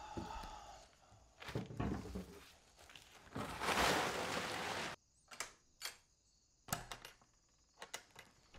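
A plastic tarp rustling loudly for about a second and a half as it is pulled aside, with a few knocks before it. After the rustle come several short sharp clicks and knocks as a metal-fitted trunk is opened.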